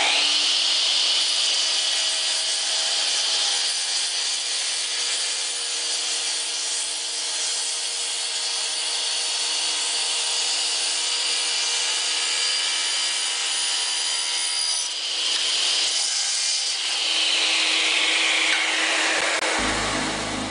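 Metabo KGS 254 I Plus mitre saw running at full speed with a high whine while its blade cuts through stock. Near the end the whine falls away as the blade winds down.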